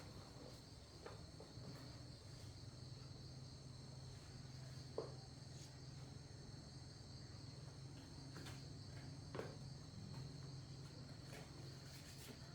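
Steady high-pitched trilling of insects, with a low hum underneath and a few faint clicks, one about five seconds in.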